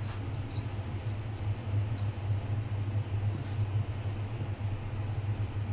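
A steady low hum, with faint soft rustling and scattered light clicks as a hand mixes dry flour and sugar in a steel bowl.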